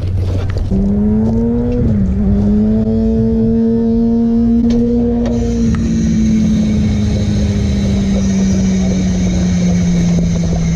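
Push-button dog-park drinking fountain humming with one steady low tone while its button is held down. The tone wavers once early on, then sinks slowly in pitch as water runs into the bowl, over a low rumble.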